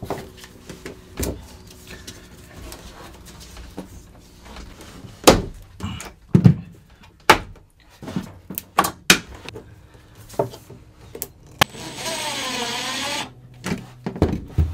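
Scattered knocks and clicks of plastic push-fit water pipe and fittings being handled and pushed together. About twelve seconds in, a Makita cordless drill runs for just over a second, its pitch dipping in the middle and rising again.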